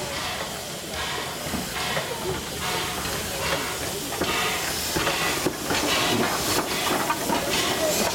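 LBSCR Stroudley Terrier 0-6-0 tank engine No. 8 'Freshwater' moving under steam: rhythmic exhaust beats, about two a second, over a steady steam hiss. It grows louder as the engine draws near.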